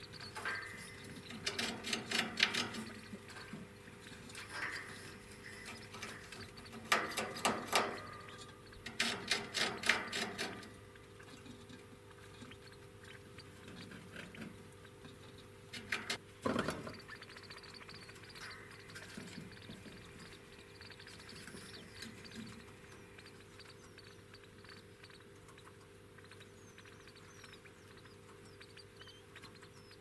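Pet degus making four short bursts of rapid clicking chatter, each about a second long, while grooming, over a faint steady hum.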